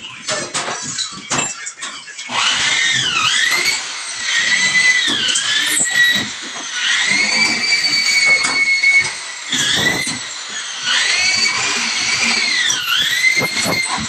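Corded electric drill whining as it drives screws through fibre-cement board into metal studs, its pitch dipping and recovering several times as each screw takes the load. A few knocks come before it starts, about two seconds in.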